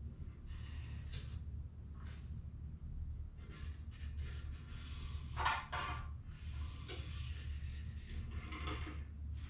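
Marker pen tracing along a foam board around an oil pan, giving short scratchy strokes, the loudest about five and a half seconds in, over a steady low hum.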